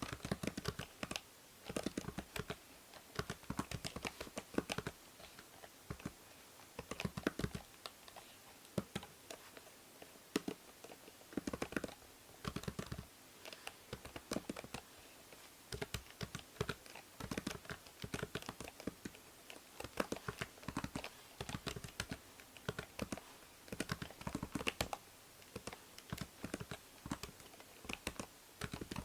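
Typing on a computer keyboard: irregular runs of key clicks with short pauses between them, over a faint steady hiss of microphone noise from the binaural recording.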